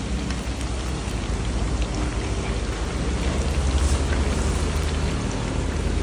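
Pork pieces deep-frying in woks of hot oil, a steady dense sizzle over a low rumble.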